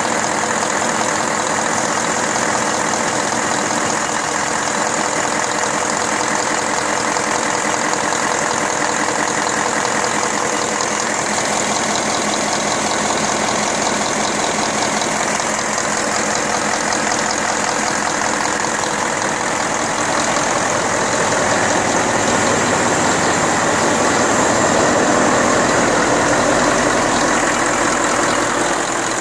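Freshly overhauled Deutz 1015 diesel engine running steadily, growing somewhat louder about two-thirds of the way through before easing back near the end.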